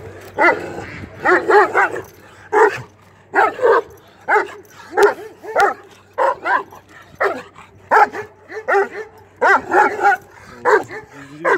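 A Kangal shepherd dog barking over and over, the barks often coming two or three in quick succession.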